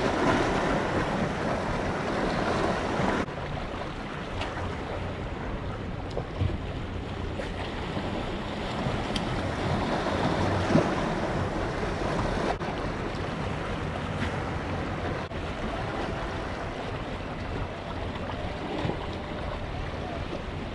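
Small sea waves lapping and splashing against a rock breakwater, a steady wash of water noise, with wind buffeting the microphone.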